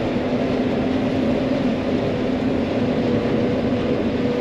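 John Deere 9500 combine running steadily while harvesting corn, heard from inside the cab as an even drone with a steady hum.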